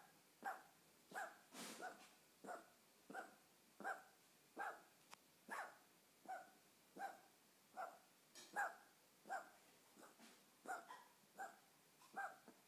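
A cat coughing in a long, even run of short hacks, about one every 0.7 seconds.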